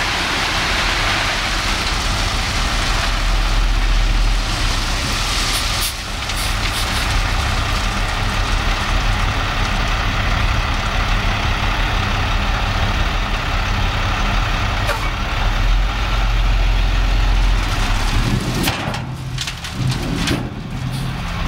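Dump truck's diesel engine running as its raised bed empties a load of gravel and earth, the material pouring out in a steady rushing rumble. About three seconds before the end the pouring noise falls away and the engine note changes.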